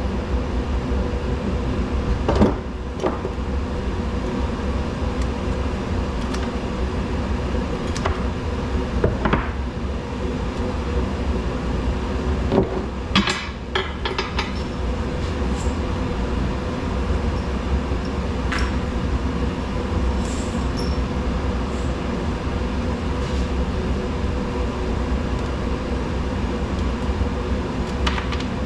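Steady low mechanical hum, with scattered sharp metallic clinks and knocks from scrap metal being handled.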